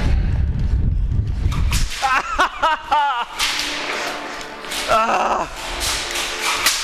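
Airsoft guns firing, a few sharp snapping shots in the second half, with a short shout partway through and a low rumble of movement at the start.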